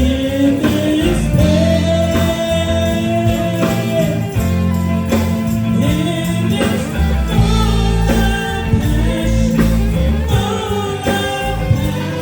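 Live gospel music: a band with bass, drums and tambourine, and a singing voice holding long notes that slide up and down.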